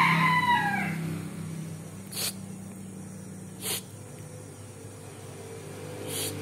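A rooster crowing, its call ending about a second in. It is followed by three short rustles spaced a second or two apart, over a steady low hum.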